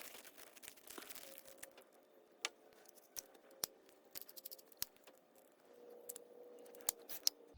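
Faint handling sounds of small metal carburetor parts: scattered light clicks and taps, a few sharp ones spaced about a second apart, over a faint steady hum.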